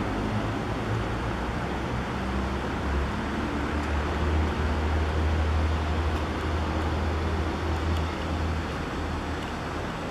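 Steady road traffic noise with a low engine hum that grows louder in the middle and eases off toward the end.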